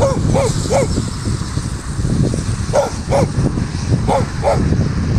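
A dog barking at an approaching person, the barks mostly coming in quick pairs with short pauses between the pairs, about seven barks in all.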